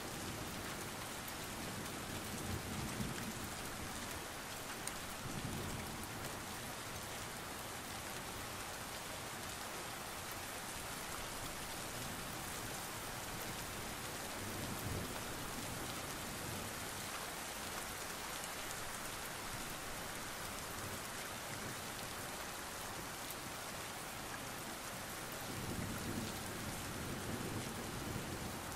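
Steady rain falling on hard surfaces, a dense even hiss, with a few soft low rumbles swelling up now and then, the strongest near the end.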